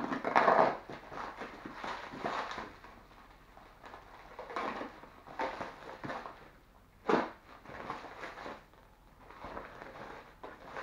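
Plastic parcel wrapping crinkling and tearing as a package is unwrapped by hand. The rustling comes in irregular bursts, with a sharper crackle about seven seconds in.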